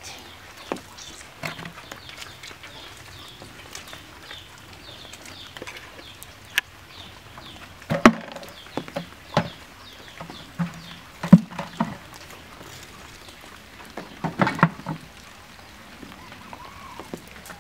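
Irregular sharp knocks and slaps as fish are picked out of a cast net on bamboo slats, the fish and net knocking against the wood, loudest through the middle.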